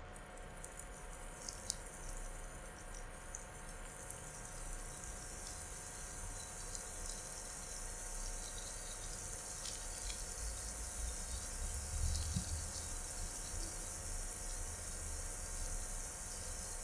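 Spring rolls frying in shallow vegetable oil in a non-stick pan: a few sharp crackles as the first roll goes into the hot oil, then a steady high sizzle that grows louder as more rolls are added.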